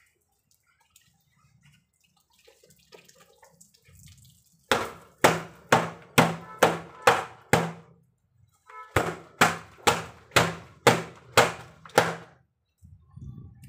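Handwashing laundry: sharp wet slaps in two runs of about seven, roughly two a second, with a short pause between the runs.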